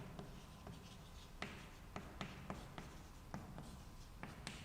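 Faint writing sounds: a pen or marker tapping and scratching, making about a dozen short, irregular light ticks.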